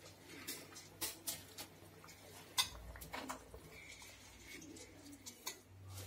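Soaked basmati rice being dropped by hand into a pot of biryani cooking liquid, heard as faint, scattered soft clicks, patters and small splashes over a low steady hum.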